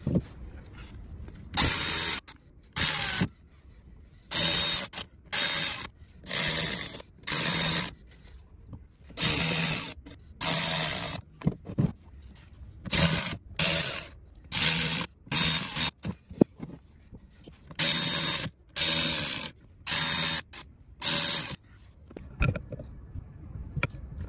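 Ratchet wrench clicking in short runs of about half a second, roughly eighteen times with brief pauses, as bolts on an engine's cylinder head are turned.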